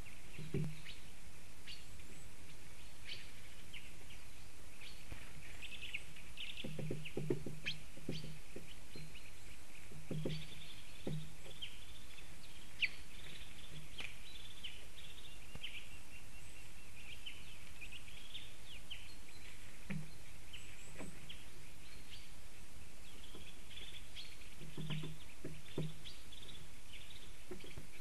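Small songbirds chirping and twittering over a steady hiss, with soft low knocks now and then.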